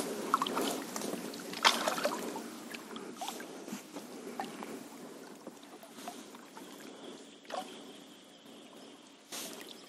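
Water splashing and sloshing around a wooden rowboat as it is paddled with an oar and pushed by hand through shallow creek water, with scattered small splashes and knocks.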